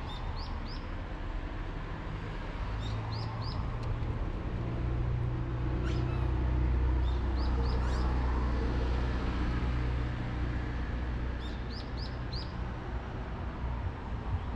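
A small bird chirping in quick runs of three or four short notes, repeated every few seconds, over a low rumble that builds and fades in the middle.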